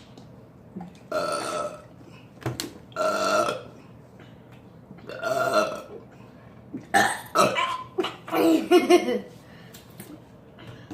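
A person burping on purpose: three single burps about two seconds apart, then a louder, choppier run of burps over the next two seconds or so.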